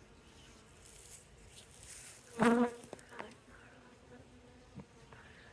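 Honey bees buzzing around an opened nuc, a steady hum that is briefly louder about two and a half seconds in, with a few faint clicks.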